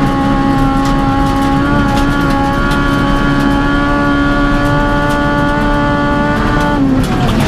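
Honda Civic Type-R rally car's four-cylinder engine heard from inside the cabin, held at high revs under full throttle and slowly climbing in pitch, then dropping away sharply near the end. Faint sharp ticks of gravel hitting the car run through it.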